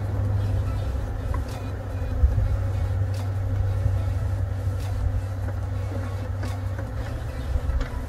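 Honeybees buzzing around an opened hive, a faint steady hum over a steady low rumble, with a few faint clicks as the hive frames are handled.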